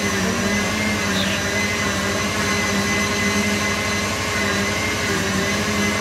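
Kitchen blender running steadily, beating a liquid cake batter of eggs, sugar, oil and milk.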